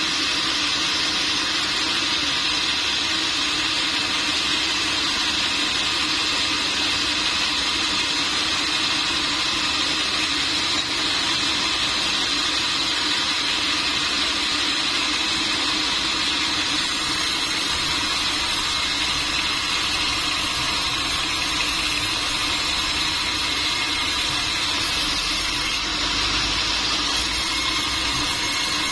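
Sawmill machinery running steadily, a continuous mechanical noise with no breaks.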